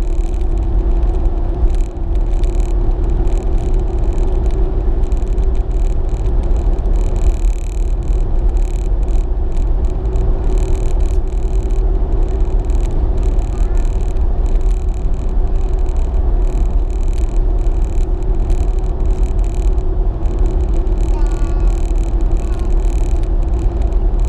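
Steady road and engine noise inside a car's cabin at highway cruising speed: a low rumble with a steady hum over it.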